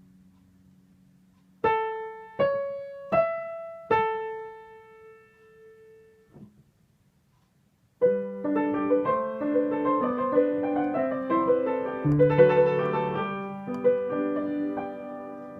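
Piano playing a Shinkansen train chime melody: four single notes about three-quarters of a second apart, then after a short pause a fuller passage with chords, lower notes joining part way through.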